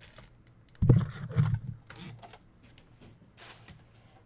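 Handling noise from trading-card boxes and packs on a table: two dull thumps about a second in, then light clicks and a brief rustle.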